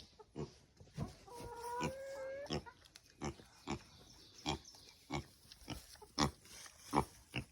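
Pigs grunting: a dozen or so short, irregular grunts, with one longer, steadier pitched call about a second and a half in.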